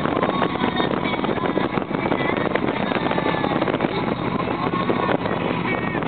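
Harley-Davidson V-twin engine running steadily while the motorcycle cruises at city speed, heard from the pillion seat with wind rushing over the microphone.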